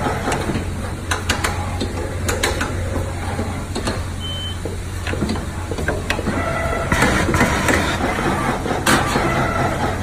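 Automatic seal-inserting and wire-crimping machine running: a steady hum with irregular sharp clicks and knocks as its pneumatic actuators and crimp press cycle. A short high beep sounds about four seconds in.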